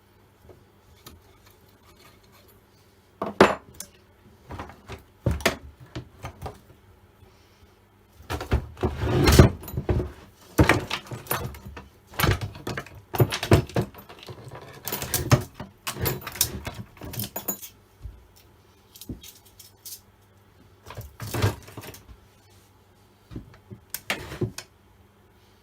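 Metal parts and hand tools clinking and clattering in quick irregular bursts as an old Stihl 08S chainsaw is taken apart. It starts a few seconds in and is busiest in the middle.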